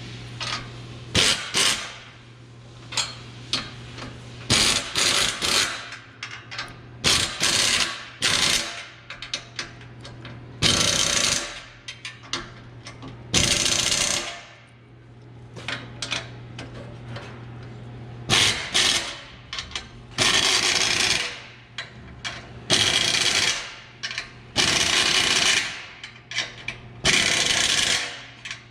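Power impact wrench running in about a dozen short bursts, each under a second, tightening down the exhaust clamp nuts on a mid-muffler delete pipe.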